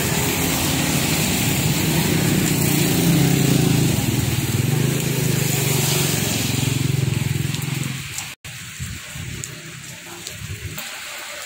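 Steady heavy rain with a loud low rumble under it for about the first eight seconds. After a sudden break the rain carries on alone, quieter.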